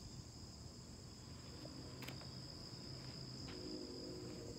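Steady, high-pitched chorus of insects, with one light click about two seconds in.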